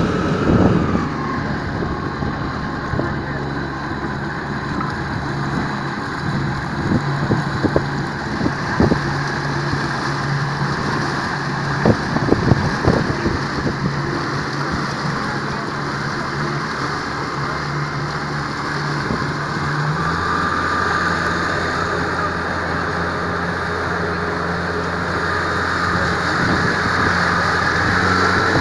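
Motorboat engine running steadily under way, with water and wind rushing past the boat. About twenty seconds in, the engine note changes to a lower hum.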